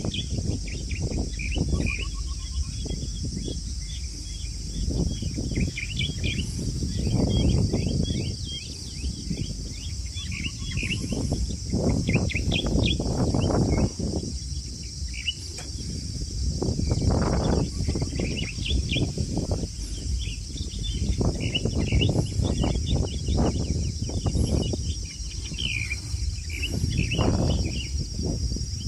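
Outdoor ambience of insects keeping up a steady high trill, with birds chirping here and there. Low rumbling surges rise and fall every few seconds.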